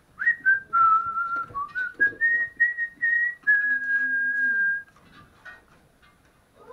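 A person whistling a short tune: a string of held notes that step up and down, ending about three-quarters of the way through. Light knocks of a serving spoon on the pan and bowls are heard alongside.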